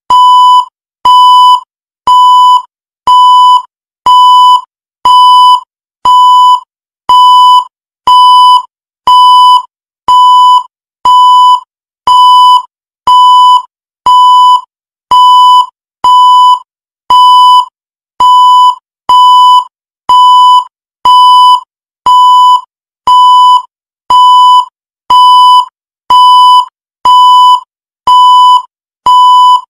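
Digital countdown-timer beep sounding once every second, each a steady high electronic tone about half a second long, marking each second as the timer counts down.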